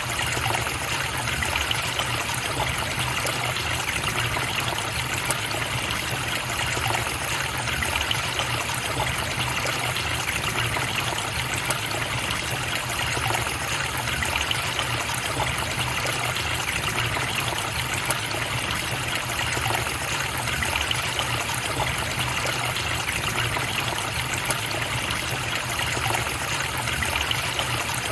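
A stream or small river flowing, trickling and splashing steadily without change.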